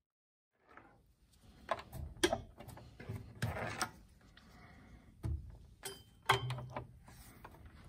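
A series of sharp clicks and knocks with a short rustle, beginning about a second in: test leads being handled and plugged into the terminals of a bench DC power supply.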